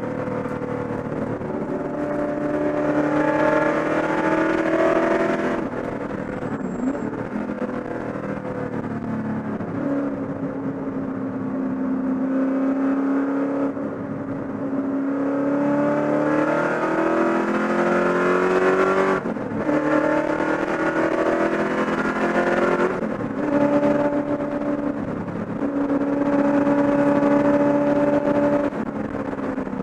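Holden Commodore V8 race car engine heard from inside the cockpit at racing speed. It climbs in pitch under acceleration, with brief dips at gear changes or lifts about six, nineteen and twenty-three seconds in, then holds a steadier note near the end.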